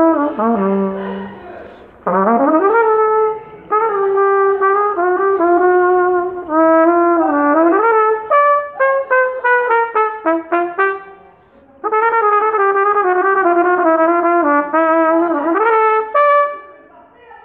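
Solo trumpet improvising a slow, bluesy line: held notes with bends and a rising scoop into a phrase, then a quick run of short detached notes in the middle, with brief pauses between phrases.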